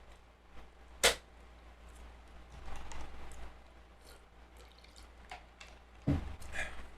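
Close-miked eating noises: a sharp click about a second in, soft wet mouth and chewing sounds, and another knock near the end.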